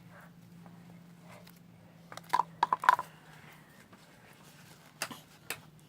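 Homemade slime being handled and squeezed by hand, with a few short squelches about two to three seconds in and two sharp clicks near the end, over a faint steady hum.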